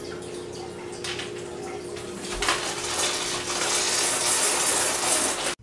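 A few light clinks of a spoon and glass. Then, about two and a half seconds in, a spluttering fizz that grows louder as a mouthful of baking soda and vinegar foams and sprays out between a man's lips.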